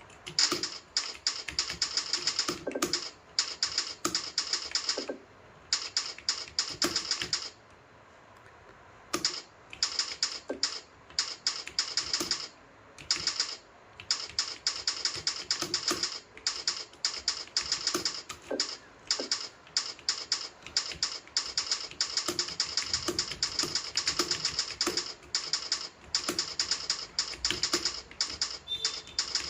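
Fast typing on a computer keyboard: rapid key clicks in long runs, broken by a few brief pauses, the longest about eight seconds in.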